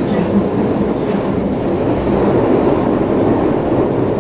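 Osaka Metro 30000 series subway train with Mitsubishi IGBT-VVVF drive running through a tunnel, a steady rumble of wheels and running gear on the rails.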